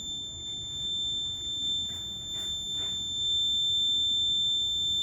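Fire alarm panel buzzer sounding one steady, high-pitched electronic tone during the alarm delay, before the horns and sirens come on; it cuts off near the end.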